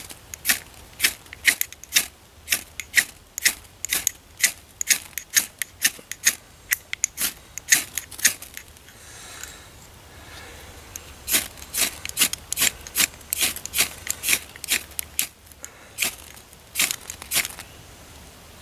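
Ferrocerium rod struck again and again with a metal scraper, short rasping scrapes about two a second that throw sparks onto a grass-and-lichen tinder bundle. The strikes come in two runs with a brief pause about halfway through.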